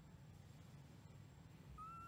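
Near silence, with one short call rising slightly in pitch near the end.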